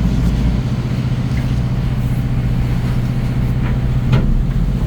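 Fishing boat's engine running steadily with a low hum, with a brief knock about four seconds in.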